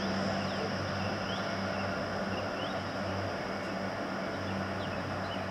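Diesel multiple unit drawing slowly towards the platform, its underfloor diesel engines giving a steady low drone. A few short bird chirps sound over it.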